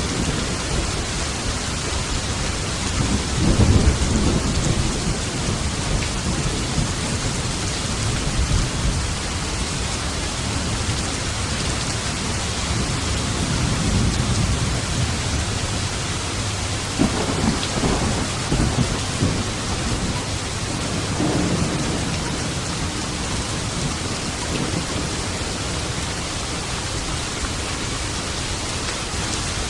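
Thunderstorm: steady heavy rain with low thunder rumbles rolling in, loudest about three to four seconds in and again with several rumbles around seventeen to twenty-two seconds in.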